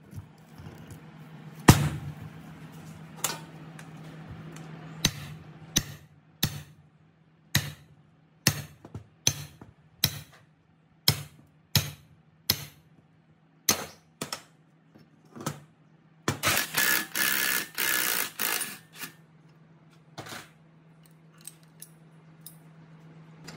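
Hammer blows on a steel drift driving an old electric motor's rotor shaft out of its cast end shield: a long series of sharp metallic strikes, about one every half second to second, then about three seconds of rapid metallic clatter. A steady low hum runs underneath.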